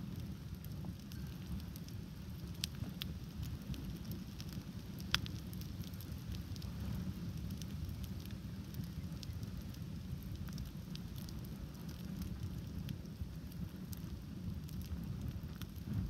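Campfire burning shoes on a shoe rack: a steady low rush of flames with scattered crackles and pops, the sharpest pop about five seconds in.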